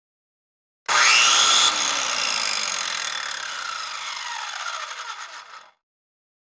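Circular saw starting abruptly with a quick rising whine and running loud for under a second. The trigger is then released and the blade spins down, its whine falling steadily in pitch for about four seconds until it stops.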